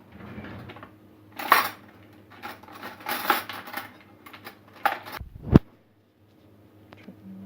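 Kitchen utensils clinking and scraping against a mixing bowl in irregular short strokes while a teaspoon of salt goes into the crêpe batter and is whisked in, with a sharper knock about five and a half seconds in.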